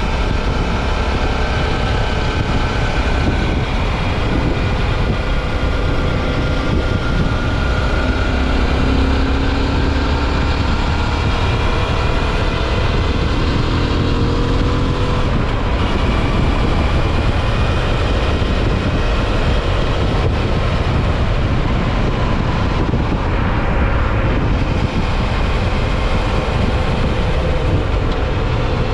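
Suzuki V-Strom 650 XT's 645 cc V-twin engine running at road speed under a steady rush of wind. The engine's pitch drifts slowly up and down.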